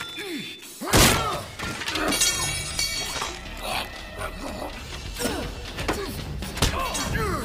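Film fight-scene soundtrack: a loud crash about a second in, then blows and scuffling with men grunting and shouting, over a low music bed.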